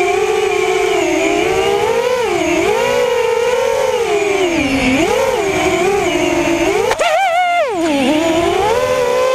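A drone's motors and propellers whining, the pitch rising and falling constantly as the throttle changes. About seven seconds in there is a click, then a quick surge up and back down in pitch.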